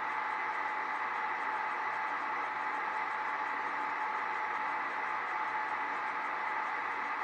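Portable air conditioner running inside a homemade soundproofing box: a steady whir with a faint constant tone, quiet, almost at the level of an electric fan.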